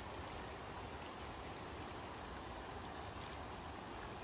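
River water spilling steadily over a low concrete weir and churning into white water below, a constant rushing sound.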